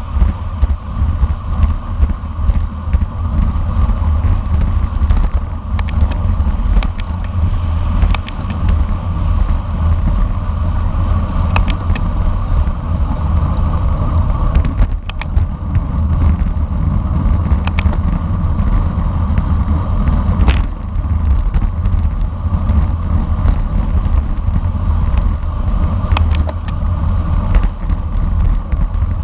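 Wind rushing over the microphone of a camera on a racing bicycle moving at speed: a loud, steady rumble with tyre and road noise. Scattered short clicks and rattles run through it.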